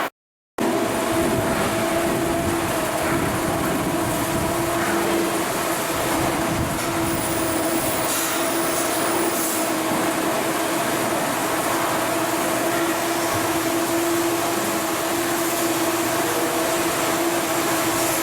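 Steady, continuous machinery noise with a constant hum, after a half-second gap at the very start.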